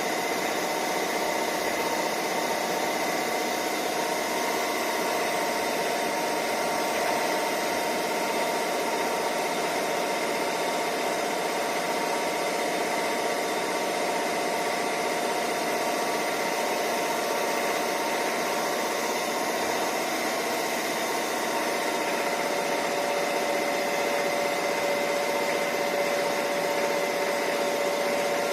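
Murata MW100 twin-spindle CNC lathe running steadily: a constant machine hum with several steady whining tones.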